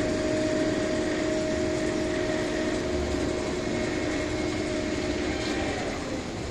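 Silver Bullet inverted roller coaster's train running along the steel track overhead: a steady mechanical hum with two held tones over a rushing noise, fading and breaking off near the end.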